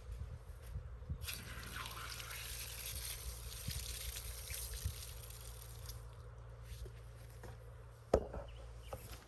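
Water spraying with a steady hiss for several seconds, then tapering off, with a single sharp knock near the end.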